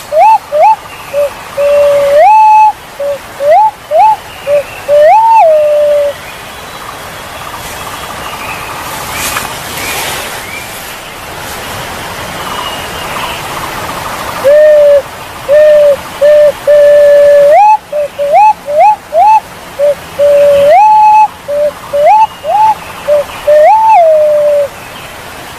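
Punai walik jawa, a Javanese wild pigeon, calling: long whistled hoots, some gliding upward, with runs of short rising notes. There are two bouts of calling with a pause of about eight seconds between them, where only background hiss is heard.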